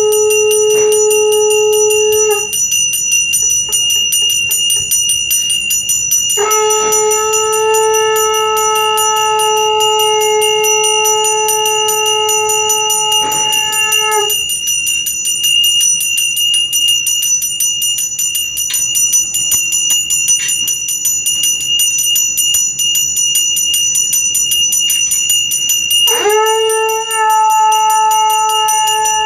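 A brass hand bell rung rapidly and without a break during aarti. Over it a conch shell is blown in long held notes: one ends about two seconds in, another lasts from about six to fourteen seconds, and a third starts with a rising swoop near the end.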